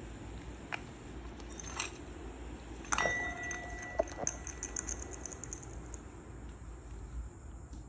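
A sharp metallic clink about three seconds in, followed by a brief ringing tone and light jingling, over a steady low background hum.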